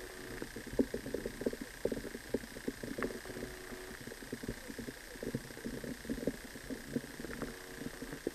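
Underwater river sound: dense, irregular crackling and clicking, with brief low humming tones near the start and near the end.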